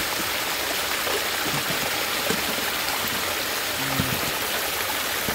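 Small waterfall of water pouring steadily over rocks into a shallow pool, with faint splashing of hands in the water.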